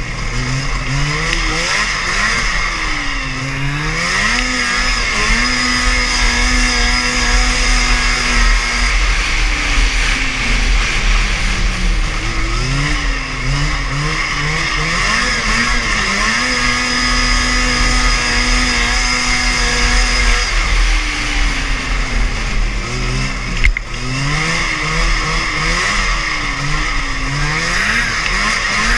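Racing snowmobile's two-stroke engine revving through laps of an oval. Its pitch climbs, holds high for several seconds on the straight, then falls away as the rider backs off for the turn, three times over.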